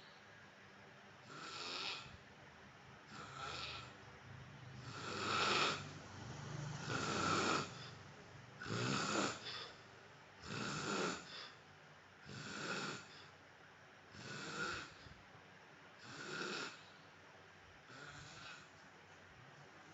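A man snoring: about ten snores, roughly one every two seconds, loudest in the middle and fading near the end.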